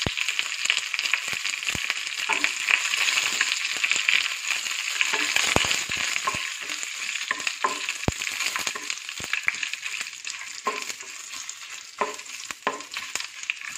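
Mustard seeds, curry leaves and dried red chillies frying in hot coconut oil in a pan, stirred with a spatula: a steady sizzling hiss with scattered clicks and pops that slowly dies down toward the end. This is the tempering (thalippu) for kalan.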